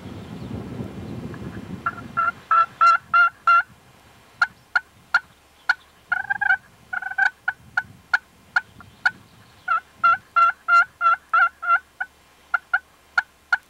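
Turkey calling: runs of loud, sharp hen-style yelps and clucks, about three notes a second, starting about two seconds in, with short pauses between runs. Wind rumbles on the microphone before the calling starts.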